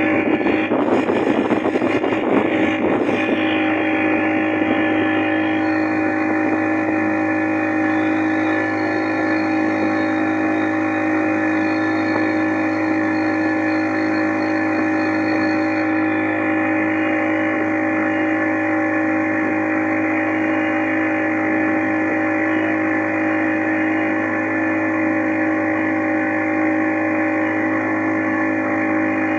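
Boat engine running steadily at constant speed, with some rougher clattering noise in the first few seconds.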